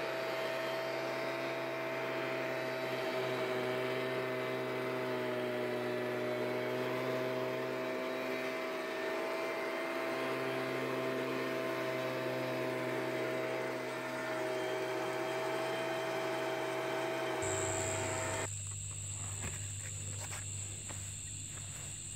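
Petrol blower-vac running steadily with an even engine hum, stopping about 18 seconds in. Crickets keep up a steady high chirring afterwards.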